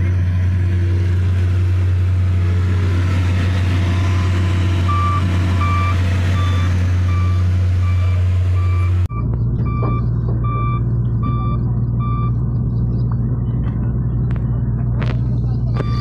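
Laverda 3750 combine harvester's diesel engine running close by with a loud, steady low hum. Its reversing alarm beeps about one and a half times a second from about five to twelve seconds in. The engine note changes abruptly about nine seconds in.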